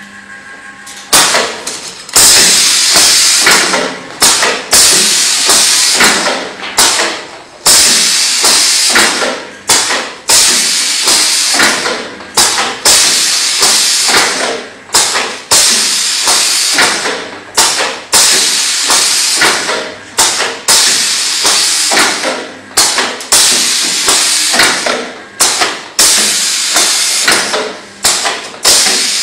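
Kebab skewering machine cycling: its pneumatic pushers clack and vent air with a hiss about once a second as they drive bamboo skewers through trays of meat. The cycle starts about a second in, after a quieter machine hum.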